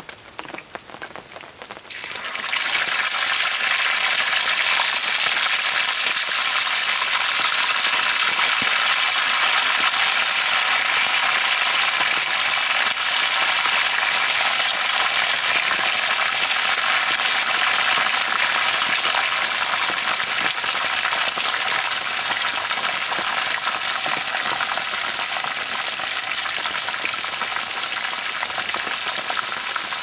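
Chicken drumsticks frying in a pan of hot oil: a loud, steady sizzle that starts suddenly about two seconds in.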